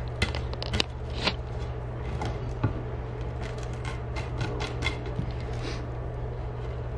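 Old, glued-in chair cane being picked and torn out of the spline groove of a wooden seat frame by hand. Dry strands crackle and snap at irregular moments, with scrapes of a small metal tool, over a steady low hum.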